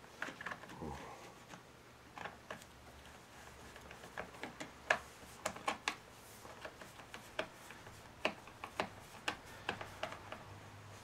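Hand screwdriver turning screws into the plastic cover of an Echo CS-330T chainsaw: small irregular clicks and ticks of metal on screws and housing, a few a second, the loudest about five seconds in.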